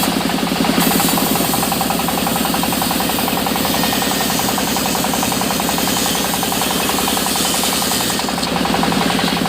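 Sawmill machinery running steadily, with a fast, even pulsing.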